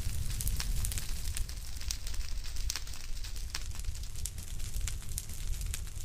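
Fire crackling: a steady low rumble of burning with frequent sharp pops and snaps.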